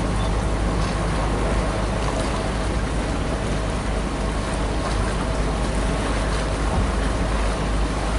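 Gusty nor'easter wind buffeting the camera microphone: a loud, steady low rushing noise with a faint steady hum beneath it.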